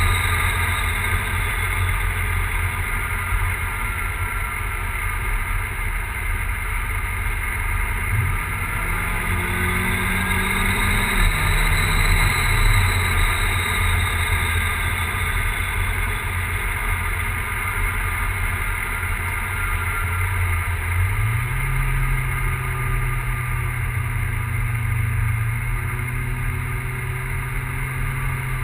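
Big-turbo Volvo 940 engine running on E85 with an uneven, misfiring idle. It is revved up briefly about eight seconds in and settles back. About twenty seconds in it is raised again and held at a higher speed. The misfire's cause is unknown.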